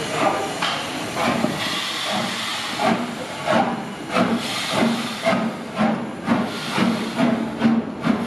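BR Standard Class 4 4-6-0 steam locomotive No. 75078 getting under way. Its exhaust chuffs quicken to about two or three a second over a steady hiss of steam.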